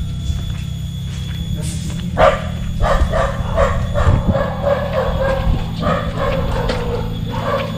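A dog barking and yelping in a rapid run of short calls, starting about two seconds in, over a steady low hum.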